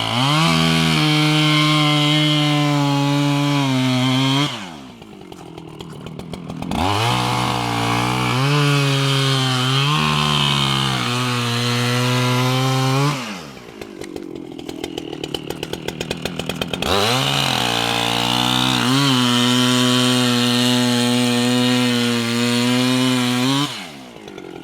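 Chainsaw cutting a hole through lake ice. It revs to full speed and holds there three times, dropping back to idle twice in between.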